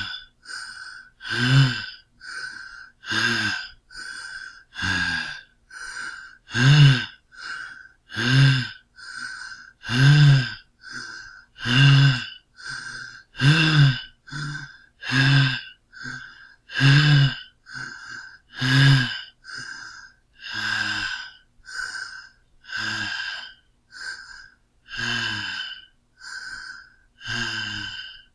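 A man breathing hard, out of breath: steady, rhythmic panting in which a louder gasping breath with a little voice in it alternates with a quieter breath, about one full in-and-out every second and a half to two seconds. The breaths grow a little softer in the last third.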